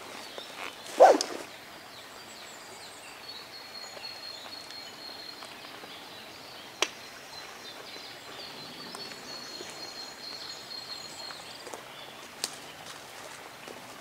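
Footsteps of a hiker walking away over the forest floor, with a loud crunch of a step about a second in and a few sharp snaps of twigs later on. A faint, thin, high steady trill runs in the background for most of the time.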